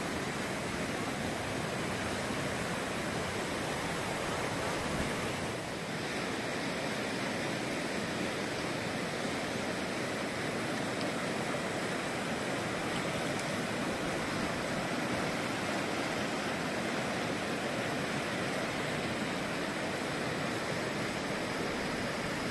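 Fast, silt-grey glacial river rushing over rocks: a steady, even rush of churning water.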